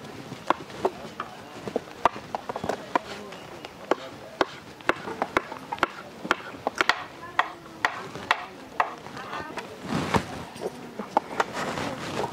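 A run of sharp, irregular knocks, about two or three a second, thickening into a busier cluster near the end.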